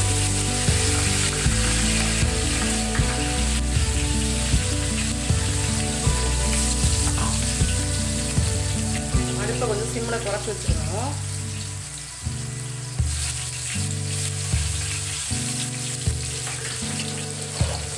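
Hot oil sizzling and crackling in an aluminium pot after ground curry-leaf paste is tipped into the mustard-seed and urad-dal tempering, with background music playing underneath.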